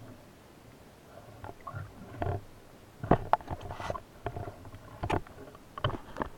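Muffled underwater water noise with irregular knocks and clicks, picked up by a camera mounted on a speargun as a spearfisher swims along the seabed. The sharpest knocks come in a cluster about three seconds in and again near five and six seconds.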